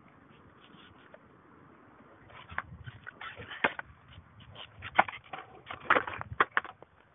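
Skateboard clattering: a quick, irregular run of clicks, knocks and short scrapes that starts about two seconds in and stops shortly before the end.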